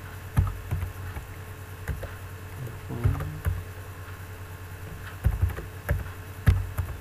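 Computer keyboard keys being typed, several separate clacks spaced irregularly, about half a second to a second apart, over a steady low hum.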